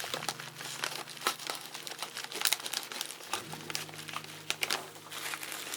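Plastic packaging crinkling and crackling as it is handled and pulled open by hand: a dense run of irregular sharp crackles.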